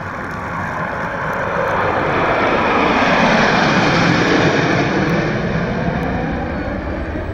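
Jet noise of a formation of six J-10 fighter jets flying past: a wide, rushing sound that swells to its loudest about three to four seconds in, then slowly fades.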